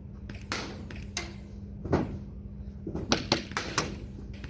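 Airsoft gunfire: sharp clicks and knocks of shots and BB hits, a few single ones at first, then a quick run of about six near the end.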